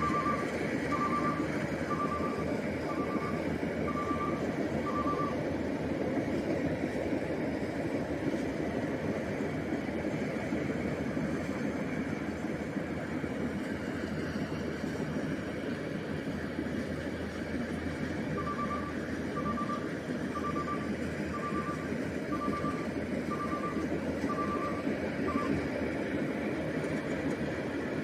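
Rice combine harvester's engine and threshing machinery running steadily. Its warning beeper sounds at an even pace of about one beep a second, for the first five seconds and again for about seven seconds near the end.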